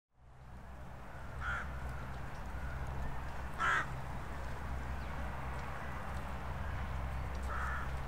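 Crows calling: three short caws, about a second and a half in, near the middle (the loudest) and near the end, over a steady low rumble.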